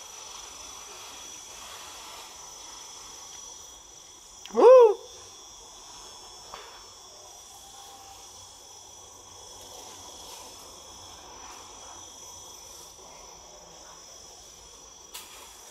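Steady high-pitched chorus of forest insects. About four and a half seconds in, one short, loud call slides upward in pitch.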